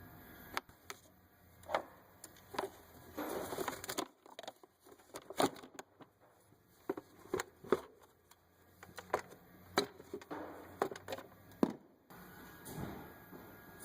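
Plastic clips and tabs of an engine-bay trim part being worked free by hand: irregular clicks, knocks and creaks of plastic, with brief rustling now and then.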